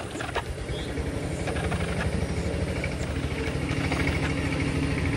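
An engine running steadily with a low hum, growing louder over the few seconds, with a couple of sharp clicks near the start.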